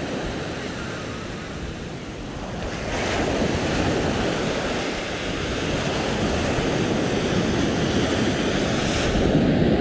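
Ocean surf breaking and washing up a sandy beach, with wind buffeting the microphone; the wash grows louder about three seconds in as a wave runs up the sand.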